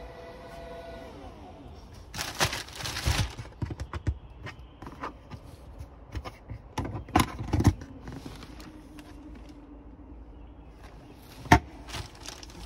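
Hand-handling in an SUV's cargo area: plastic wrapping on a floor mat crinkles, and trim clicks and knocks several times, the loudest a sharp knock near the end. At the start, the steady whine of the powered tailgate's motor dies away about a second in.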